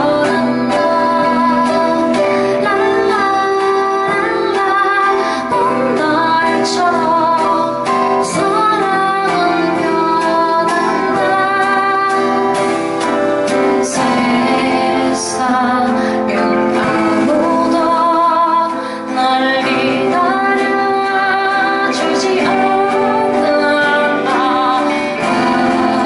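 A small band playing live: a woman singing the lead melody with vibrato over her acoustic guitar, backed by electric bass, drums and keyboard.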